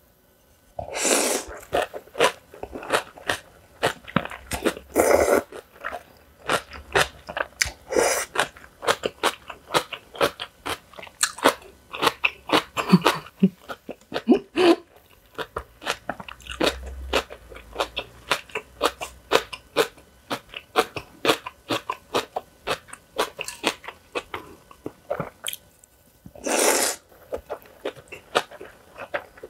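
Close-miked eating: many crisp crunching bites and chewing of young radish kimchi bibimbap, with a few longer, louder bursts spread through.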